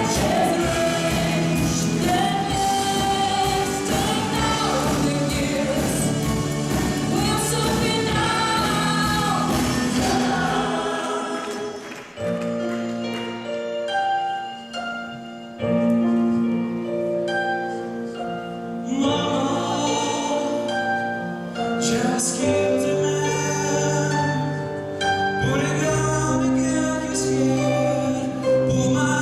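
Vocal ensemble singing in harmony over a live band with drums. About eleven seconds in, the drums and bass drop out, leaving the voices on long held chords over lighter accompaniment.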